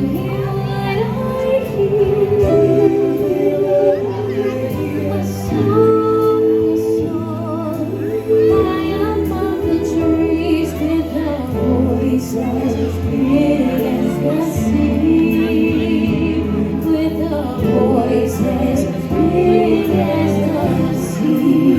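Music with singing: a melody sung in long, wavering notes with vibrato over sustained low instrumental backing.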